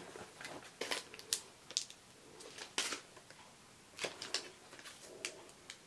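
Faint crinkling and light clicks of a sheet of clear plastic stamps being handled and flexed, in scattered short bits, the loudest about a second in, near three seconds and near four seconds.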